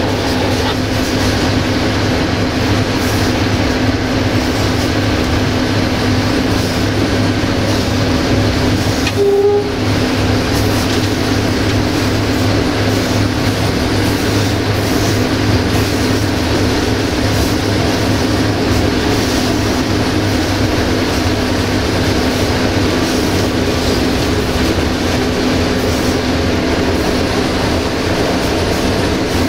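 Cab of a CFR 060-DA (LDE2100) diesel-electric locomotive under way: its Sulzer diesel engine running steadily with a constant low hum, over the rumble of wheels on rail. About nine seconds in there is a short single-note toot, which sounds like the horn.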